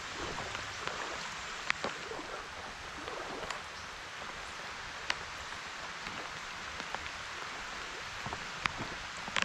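Light rain falling on a creek's surface: a steady hiss with scattered sharp ticks of single drops.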